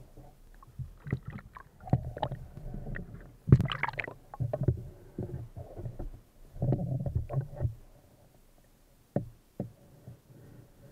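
Muffled water sloshing and knocking heard through a submerged camera's waterproof housing, coming in irregular bursts. A louder burst comes about three and a half seconds in, and a single sharp knock a little after nine seconds.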